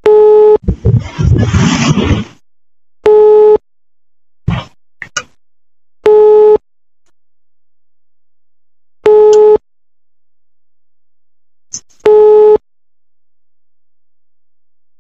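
Phone ringback tone heard over a recorded call: short beeps of one steady tone repeating about every three seconds while an outgoing call rings, waiting to be answered. A brief burst of crackling noise comes between the first two beeps.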